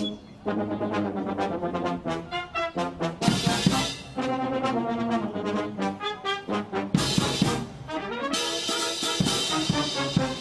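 Military band playing live brass-led music, trumpets and trombones carrying changing notes, with louder full-band passages partway through and near the end.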